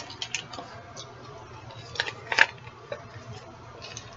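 A person chewing a gummy vitamin: a few short, soft wet mouth clicks and smacks, the loudest about two and a half seconds in.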